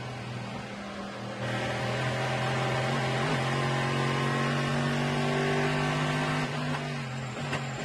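Chevrolet Corvette C6.R race car's V8 engine running hard under acceleration, heard onboard. It gets louder about a second and a half in, with a short break in the note around three seconds, and eases off near the end.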